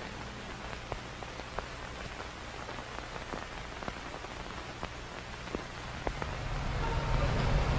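Light rain pattering in a steady hiss, with scattered sharper drops. A low rumble grows in over the last two seconds.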